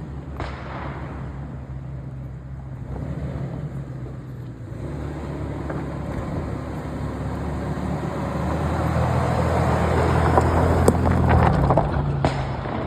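Toyota SUV engine running under load, growing louder to a peak about ten seconds in, then easing off. A few sharp clicks come near the peak.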